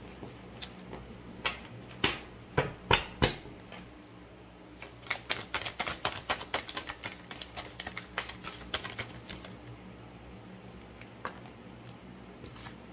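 Oracle cards being shuffled by hand: a few separate slaps and taps of the deck, then a dense run of rapid clicking card riffles for about five seconds, thinning out again near the end.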